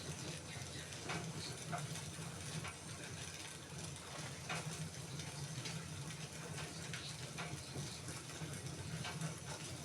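Wood fire in a fireplace crackling, with irregular sharp pops and snaps over a steady hiss and a low hum underneath.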